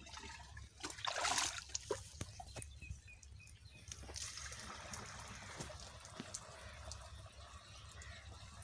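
Liquid poured from a plastic can into the plastic tank of an engine-driven crop sprayer, a steady trickling stream from about four seconds in, while the pesticide spray mix is made up. Before it come a few knocks and a short louder rush about a second in.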